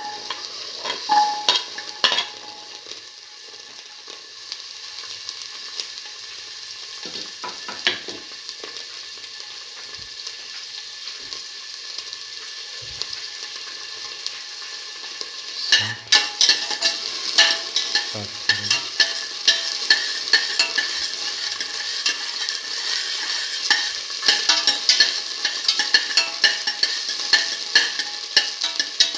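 Whole shallots sizzling in hot oil in a metal pan. About sixteen seconds in the frying grows louder and a utensil starts stirring them, with quick clicks and scrapes against the pan.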